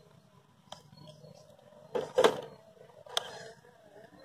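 Radio-controlled scale crawler on an RC4WD chassis, its Fusion 1800kv brushless motor and gears whining faintly as it crawls slowly over a rock. A sharp knock about two seconds in is the loudest sound, with a lighter click about a second later.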